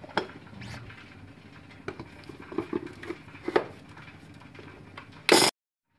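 Light plastic knocks and clicks of a mixer-grinder jar and its lid being set on the motor base and twisted to lock. About five seconds in there is one short, loud burst, then the sound cuts off abruptly.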